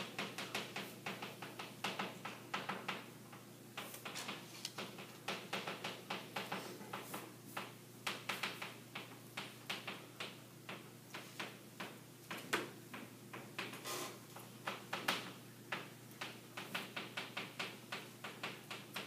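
Chalk writing on a chalkboard: quick runs of taps and short scratches as letters are written, with brief pauses between the runs.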